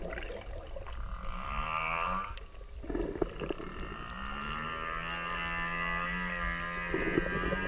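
Whale calls: pitched moaning calls with many overtones that slide in pitch, a shorter one about a second in and a longer one starting around four seconds and held for about three seconds, over a low steady underwater rumble.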